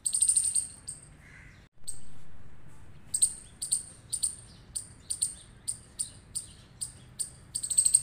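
Small rodent's alarm chip calls: sharp, very high-pitched chirps, a rapid run of them at the start, then a steady series about two a second, ending in another quick run.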